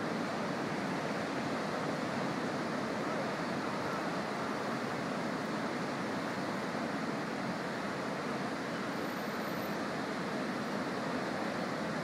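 Pacific surf breaking along a wide beach, heard as a steady, even roar in which no single wave stands out.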